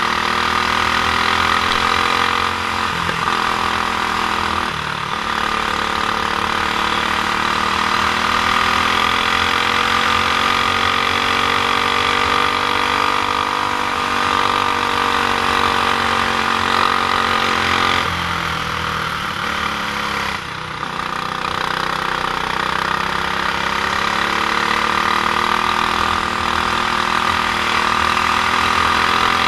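Honda GX390 single-cylinder four-stroke kart engine running hard on track. Its pitch climbs and sags with the throttle, with several sudden drops in revs.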